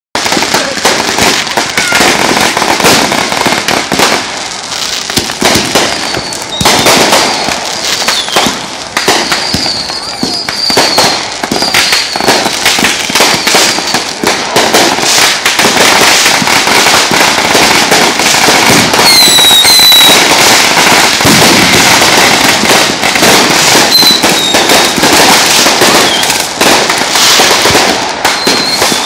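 Dense, continuous barrage of firecrackers and fireworks going off from many points at once, a non-stop rattle of sharp cracks and pops. A few short, shrill whistles cut through about ten seconds and twenty seconds in.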